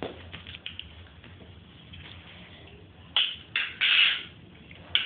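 Water splashing in a Beyblade stadium filled with water as a spinning top is launched into it: several short splashes about three seconds in, and one more at the end.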